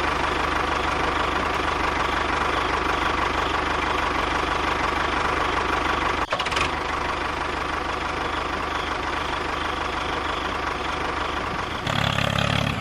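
Tractor engine running steadily at a low idle with a rhythmic knock. It breaks off for a moment about six seconds in and changes tone near the end.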